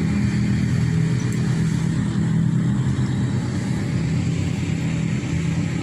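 A steady low mechanical drone, like a motor running, holding an even level throughout.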